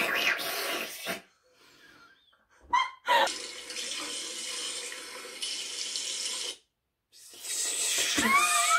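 A steady rushing hiss like water running from a tap, lasting about three seconds, with a short chirp just before it and a wavering squeaky noise near the end.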